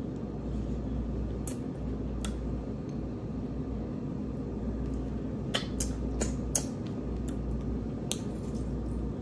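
Close-miked mukbang eating sounds: chewing and fingers handling wet, sauced seafood-boil food, with squishy noises and a few sharp clicks, several of them bunched together past the middle.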